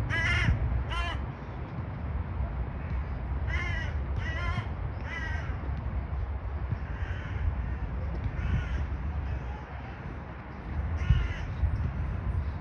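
A crow cawing repeatedly: about eight short, harsh calls in runs of two and three, the later ones fainter, over a steady low rumble.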